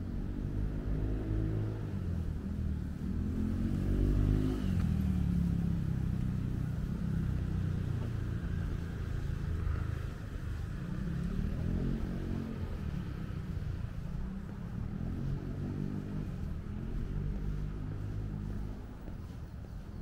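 Motor vehicles passing, their engine note rising and falling several times over a steady low rumble.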